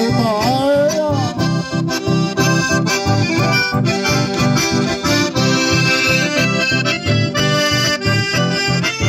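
Live button-accordion music with acoustic guitar accompaniment and a steady, even bass beat.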